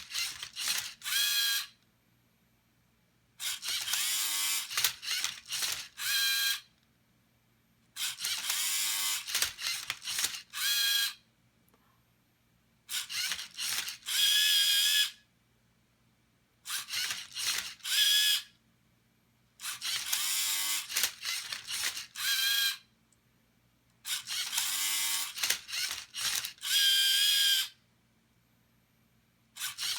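Small motors of a Rubik's cube solving robot whirring in repeated bursts of two to four seconds as they turn the cube, with short quiet pauses between moves.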